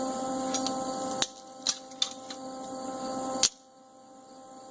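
A few sharp knocks and clicks, four in all, over a steady electrical hum. The hum cuts off suddenly with the last knock, about three and a half seconds in.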